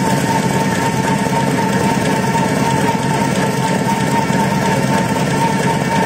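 N-fold towel paper making machine running at a steady speed: a continuous mechanical clatter of its rollers and folding mechanism, with a steady high whine throughout.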